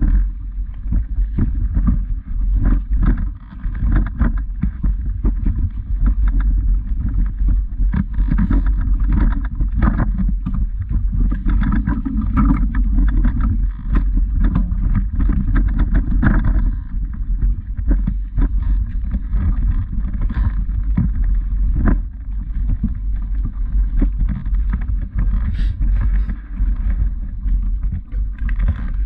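Steady low rumble of wind and handling noise on a moving camera's microphone, with irregular knocks of footsteps on a dirt path.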